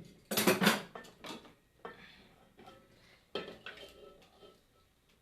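A utensil scraping and knocking against a metal cooking pot as popcorn coated in melted sugar is turned over. A loud clatter of strokes comes about half a second in, followed by a few fainter knocks and scrapes that die away.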